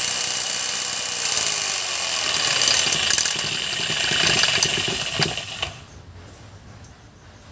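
Corded electric drill running at speed, spinning an old water-pump motor used as a makeshift generator. It is switched off about five and a half seconds in and the sound stops.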